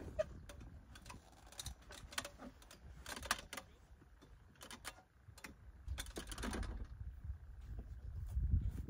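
Scattered clicks and rustles from a soft-shell roof-top tent being folded closed by hand: its fabric and frame handled from the aluminium ladder, over a low rumble that swells near the end.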